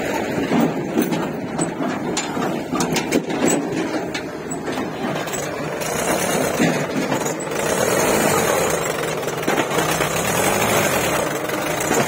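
Diesel tractor engine of a Mahindra 575 DI running as it pulls a trolley loaded with soil, with sharp clattering in the first few seconds and a steadier, slightly louder engine sound from about halfway.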